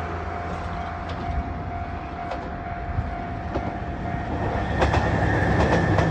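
JR Shikoku 2700 series diesel limited express train approaching and passing over a level crossing: a low engine rumble that grows louder from about five seconds in, with wheels clicking over the rail joints as it goes by. A level crossing alarm rings steadily under it.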